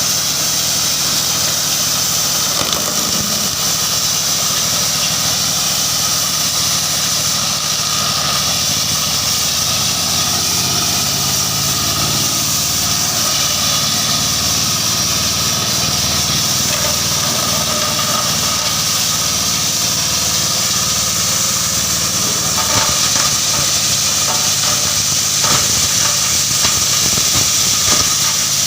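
Wood-waste crusher machine running steadily with a constant high hiss and a low throb that starts pulsing about halfway in. A few sharp knocks come near the end.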